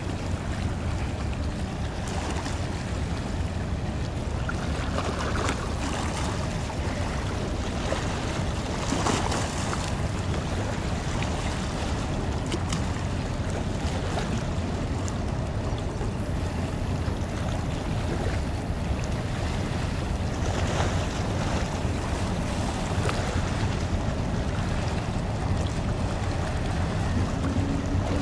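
Steady low rumble of a large Unity Line ro-pax ferry's engines as it passes close by, under wind buffeting the microphone.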